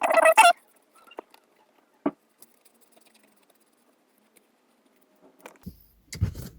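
Excess material being cut off a leather gear gaiter: a short, loud cutting sound at the start, then a few faint clicks and light handling noise near the end.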